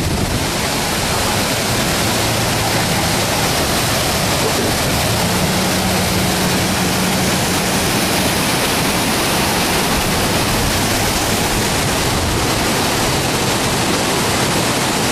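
Floodwater rushing in a steady, loud roar.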